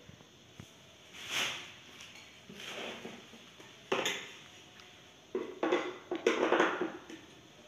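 Clattering and knocking of a plastic dustpan and metal handle tubes being handled and fitted together, with a sharp click about four seconds in and a quick run of rattling knocks near the end.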